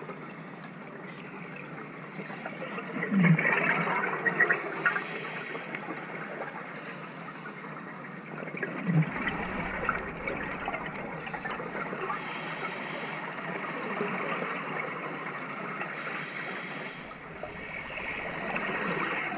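A diver's exhaled breath bubbling up underwater, heard as gushing bursts of bubbles about every four to five seconds over a steady underwater hiss.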